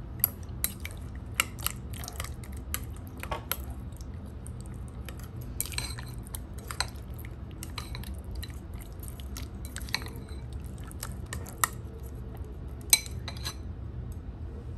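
Chopsticks stirring cubed dori fish fillet into raw egg in a ceramic bowl, with irregular clicks and taps of the chopsticks against the bowl. A steady low hum underneath.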